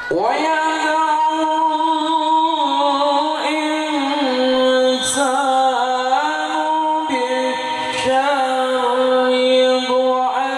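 A man reciting the Qur'an in the melodic tilawah style, one solo voice holding long ornamented notes with short breaks between phrases, sung into a microphone.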